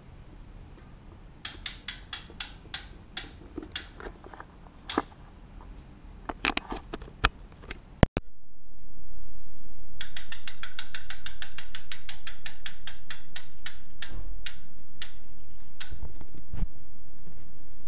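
Hope Pro 2 rear hub freewheeling as the wheel is spun by hand: its freehub pawls click rapidly, and the clicks spread out as the wheel slows. The first spin is recorded through the GoPro's internal mic. After a break about eight seconds in, a second spin is recorded through an external lavalier mic, louder and with a steady hiss behind the clicks.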